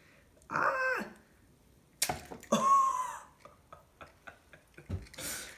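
An egg being cracked open by hand over a bowl: a sharp crack of the shell about two seconds in, followed by a string of small clicks from the shell pieces. There are short wordless voice sounds about half a second in and again just after the crack.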